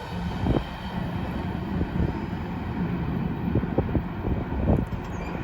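Empty coal train's hopper cars rolling past on the rails: a steady low rumble with a few sharp clanks, the loudest about half a second in and near the end.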